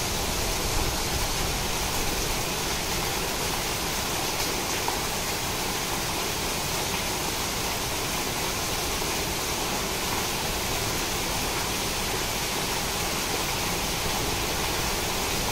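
Heavy rain pouring steadily onto foliage and standing floodwater, an even, unbroken rush of noise.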